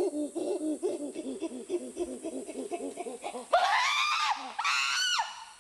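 A high-pitched voice laughing in quick, even repeated syllables, about seven a second, then breaking into two loud screams, the first rising and falling, about three and a half and five seconds in.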